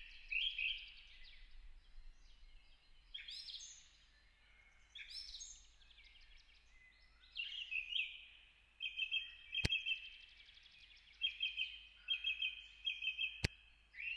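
Several birds chirping and singing, with quick repeated trills in the second half. Two sharp clicks break in, about two-thirds of the way through and near the end.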